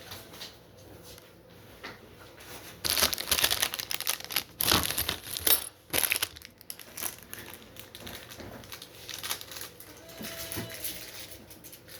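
Crinkling and rustling of packaging being handled, in a few dense bursts from about three to six and a half seconds in, with lighter scattered handling noises either side.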